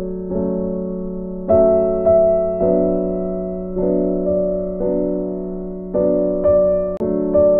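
Background music: soft piano chords, each struck and left to fade before the next.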